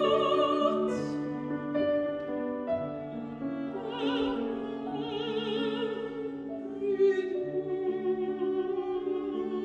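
Mezzo-soprano singing a slow art song with viola and piano accompaniment, her held notes carrying a marked vibrato over the bowed viola line.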